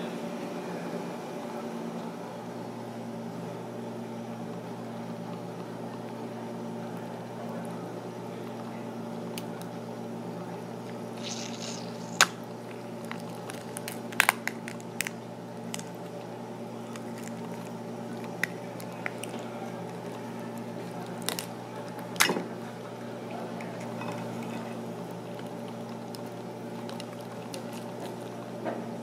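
Sauce-coated tiger prawn being pulled apart by hand: wet squelching of shell and flesh, with a few sharp cracks, over a steady low hum.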